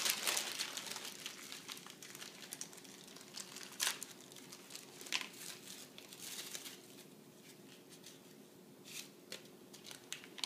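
Clear plastic packaging bags crinkling as they are handled and opened by hand. The crinkling is loudest as it begins, with a few sharp crackles later on.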